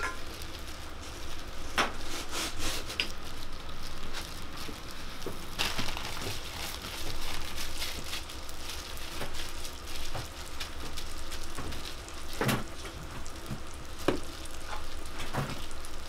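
Oil sizzling steadily under hotteok frying on a griddle, with scattered sharp clicks and knocks.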